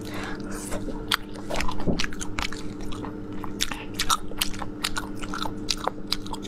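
A person chewing and biting sea snails in chili oil, with many sharp wet mouth clicks and smacks, several a second.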